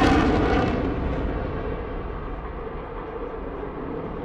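Jet noise from a Panavia Tornado's twin RB199 turbofans, loud at first, then fading over about two seconds as the upper part of the sound dies away and leaves a steady low rumble while the jet turns away.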